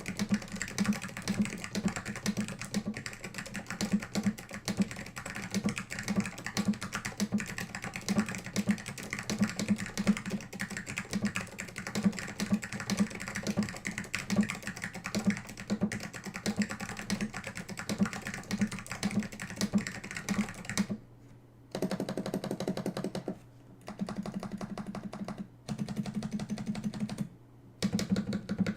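Fast typing on a custom Alps64 mechanical keyboard with tactile SKCM Orange Alps switches, an acrylic case and plate, and PBT keycaps. The keystrokes clack in a dense, continuous run. About two-thirds of the way through, this turns into short runs of quick, even presses broken by brief pauses.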